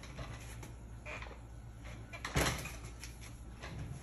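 Kittens scuffling on a tile floor during play, with a sharper thump about two and a half seconds in, over a steady low hum.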